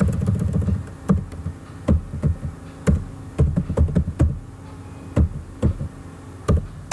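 Typing on a computer keyboard: about twenty irregular keystrokes, some in quick runs.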